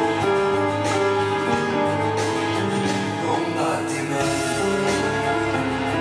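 Electronic keyboard music: an instrumental passage of a slow pop ballad, with melody notes over a sustained bass line.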